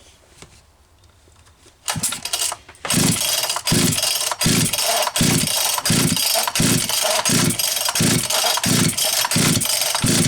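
Pioneer P39 67cc two-stroke chainsaw starting about two seconds in: it fires briefly, falters, then catches and runs loudly with a regular pulsing beat about one and a half times a second. Shortly afterwards the owner calls it not a good sign.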